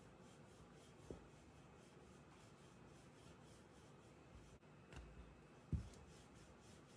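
Faint rubbing of a wooden rolling pin rolled back and forth over paratha dough on a floured worktop, with a few soft knocks; the loudest comes late.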